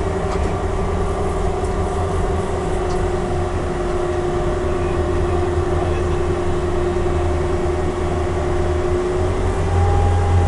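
TPz Fuchs armoured vehicle's V8 diesel engine running steadily under load while the vehicle swims, heard from inside the hull as a deep drone with a steady whine over it. It gets a little louder near the end.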